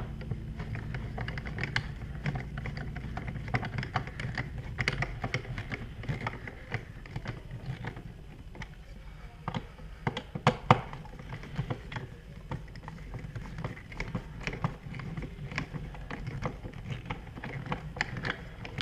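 Irregular small clicks and taps of a screwdriver and fingers working a wall outlet as it is screwed down into its electrical box, over a steady low hum.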